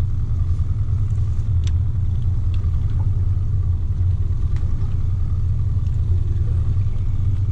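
Small outboard motor on a fishing boat running steadily, a constant low rumble, with a few faint short clicks over it.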